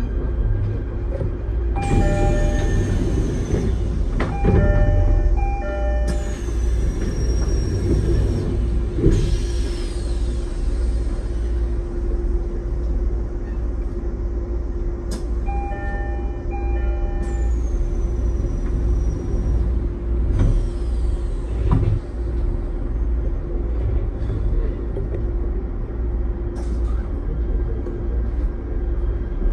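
Heard from inside a moving train: a steady running rumble with a constant hum underneath. Several high whines fall in pitch, and short clusters of squealing tones come a couple of times.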